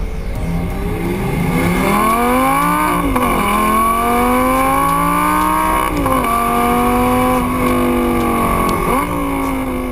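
Lamborghini Gallardo LP550-2's stock-exhaust 5.2-litre V10 accelerating through the gears: the revs climb, drop at a gear change about three seconds in, climb again to another change about six seconds in, then hold fairly level before another change near the end.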